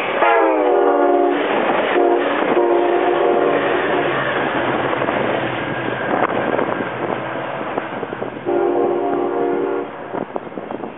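Passenger train passing at speed, sounding its multi-chime horn. The horn's pitch slides down as the cab car goes by, then comes several more horn blasts, over the rushing and clatter of the passing cars.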